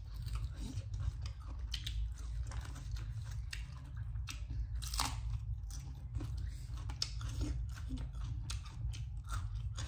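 Close-up eating sounds of crispy Korean fried chicken: repeated crunching bites and chewing, with one sharp crunch about halfway through.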